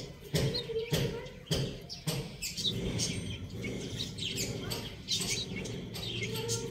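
Young chickens peeping with short, high notes that fall in pitch, coming thickly from about halfway on, while their beaks tap sharply on the concrete floor as they peck at food, most clearly in the first two seconds. A lower drawn-out call sounds twice, near the start and near the end.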